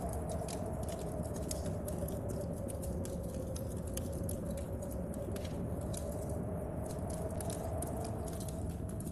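Storm-and-fireplace ambience: wind moaning at a slowly drifting pitch over a steady low rumble, with many small irregular crackles and taps from a wood fire and rain on the window panes.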